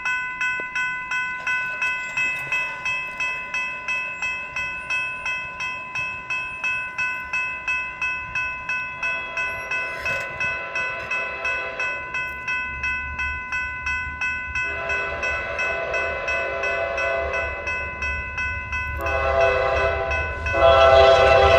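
Railroad crossing bell dinging steadily about twice a second. An approaching Amtrak P42DC locomotive sounds its horn in the grade-crossing pattern: two long blasts, a short one, then a long one, starting about nine seconds in and growing louder. The rumble of the oncoming train builds underneath.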